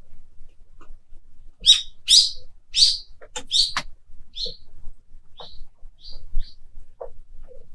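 Frozen lake ice singing and cracking: a quick run of short, high, chirping pings mixed with a few sharp cracks, loudest in the first half and thinning out toward the end. These are the creaking sounds of the lake's newly formed ice sheet under stress.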